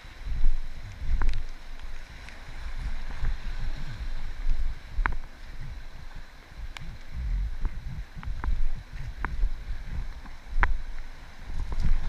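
River water moving and splashing around an inflatable kayak under way, with an uneven low rumble of wind on the microphone and scattered sharp ticks of drips or splashes about once a second.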